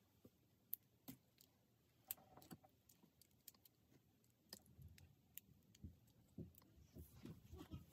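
Faint scattered clicks and light rattling of plastic Lego Technic pieces being handled and pressed together, growing busier in the second half.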